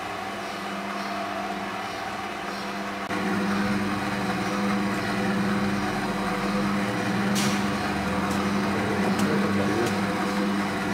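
Mazelar PM-100P stainless 100-litre mixer running steadily with a motor hum as its curved agitator arm stirs fine powder. The hum steps up louder about three seconds in, and a few light clicks come in the second half.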